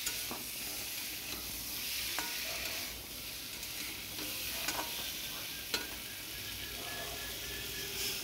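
Boiled taro pieces frying in hot oil with turmeric and chilli powder, sizzling steadily while a metal spatula stirs them. The spatula knocks against the pan a few times, most sharply near the end.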